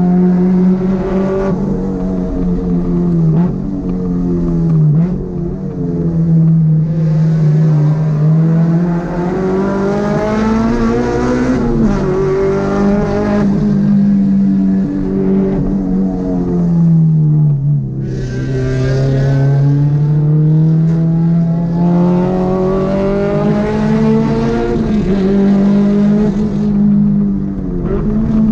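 A Honda car's engine driven hard, its note climbing as it revs up and falling back again and again, with sharp drops in pitch between pulls.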